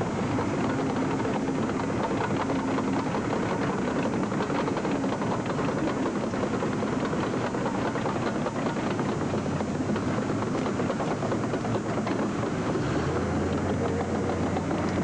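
Heavy engine of a lifeboat launching tractor running steadily, its pitch rising near the end as it is revved.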